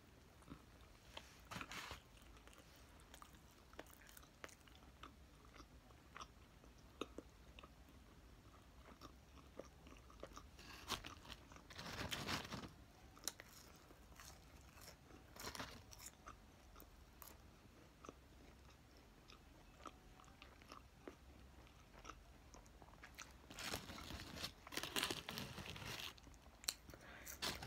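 Faint chewing and biting of fast food close to the microphone: soft crunches and small mouth clicks, louder for a moment about twelve seconds in and again near the end.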